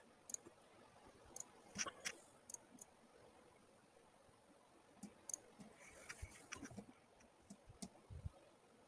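Faint, scattered clicks of a computer mouse, irregularly spaced, the loudest pair about two seconds in.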